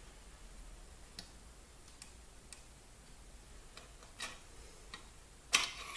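Faint, irregular metal ticks of a flat-blade screwdriver and soldering iron tip against a circuit board's connector pins as a soldered connector is pried loose, with a louder clatter of clicks about five and a half seconds in.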